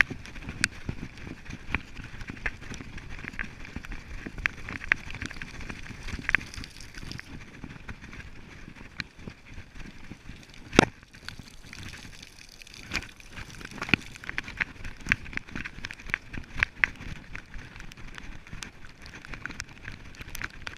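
Raindrops landing on a hard surface close by: a scattered, irregular patter of small sharp ticks, with one louder knock about eleven seconds in.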